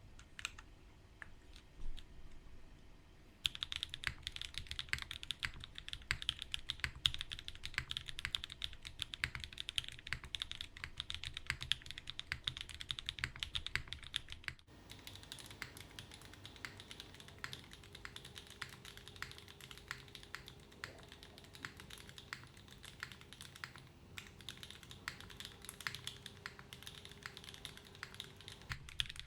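Typing on a Keycult No. 2/65 gasket-mounted custom mechanical keyboard with linear Alexotos switches, an aluminium plate, no foam and GMK keycaps. A few single keystrokes come first, then fast continuous typing starts about three seconds in. About halfway through the sound cuts off abruptly and the typing carries on, quieter.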